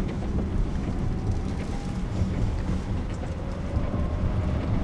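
Cabin noise of the Rolls-Royce 102EX electric prototype on the move: a steady road and tyre rumble with a faint whine that rises slowly in pitch.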